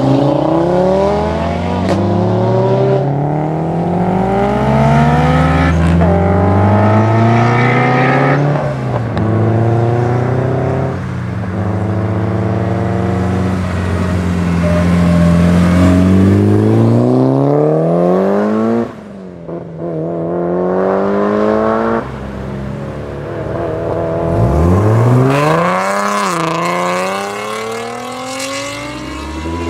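Modified car engines accelerating hard away one after another, each revving up through the gears with the pitch climbing and dropping back at every upshift. Near the end a car gives a sharp, quick rev.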